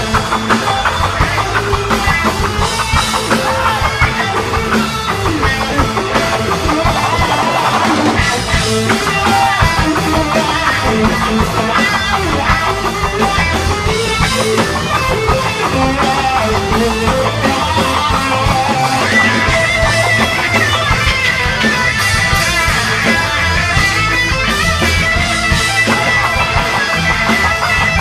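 Live rock band playing an instrumental passage without vocals: electric guitar to the fore over a drum kit, with a held high guitar note in the second half.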